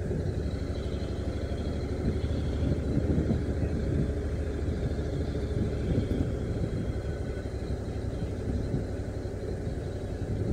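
Honda NC750X motorcycle's parallel-twin engine running at low speed, steady, with a low rumble of wind on the microphone.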